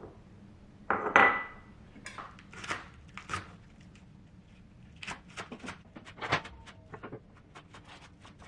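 Chef's knife chopping green onions on a wooden cutting board: scattered cuts at first, then a quick run of short strokes in the second half. About a second in, a loud clink with brief ringing, like a dish or glass container being set down.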